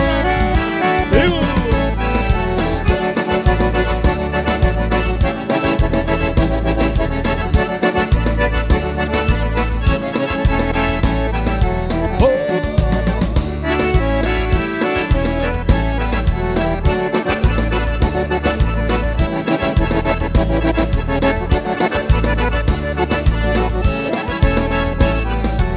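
Accordion playing an instrumental interlude of a gaúcho folk song, a busy melody over a steady alternating bass beat.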